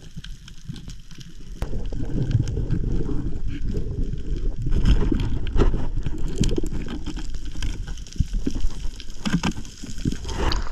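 Underwater rush and bubbling of water against a diving camera as a freediver swims quickly up from a reef cave, with scattered clicks and knocks. It grows louder about one and a half seconds in.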